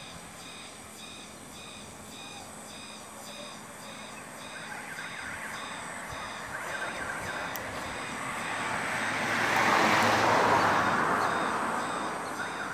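A passing vehicle whose noise swells to a peak about ten seconds in and then fades, over a faint high chirping that repeats about twice a second.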